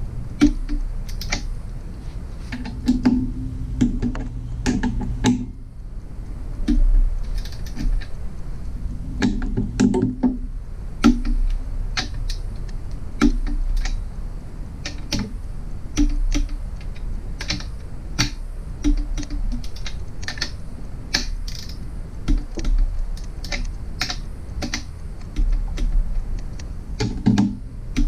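Click-type torque wrench ratcheting as bolts are tightened, in irregular runs of sharp clicks.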